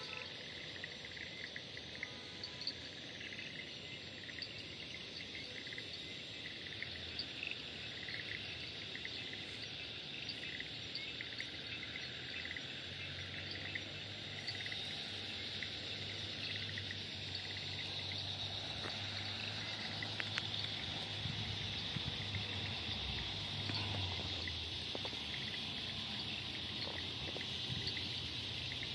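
A dusk chorus of crickets and other insects: a steady high-pitched trill that gets a little louder about halfway through, with scattered short chirps over it in the first half.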